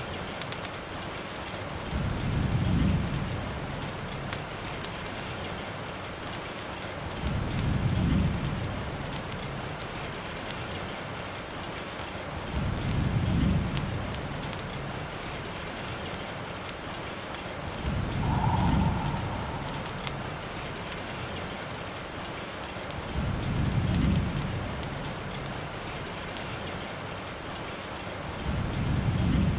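Steady rainfall, with a low rumble that swells and fades at an even pace about every five seconds.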